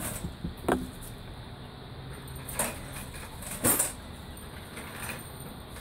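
Metal clanks in a garage: two sharp knocks about a second apart in the middle, with a few lighter clicks around them, as equipment is handled.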